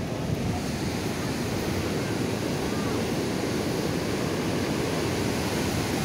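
Steady rushing of a waterfall, white water pouring through a narrow rocky gorge below.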